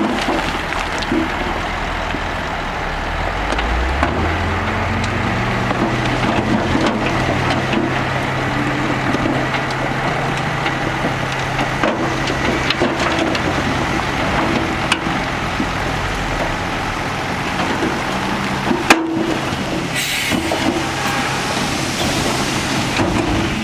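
Heavy diesel earthmoving machinery at work: an engine runs steadily and revs up a few seconds in, then holds, with scattered clanks and knocks and one sharp bang about three quarters of the way through.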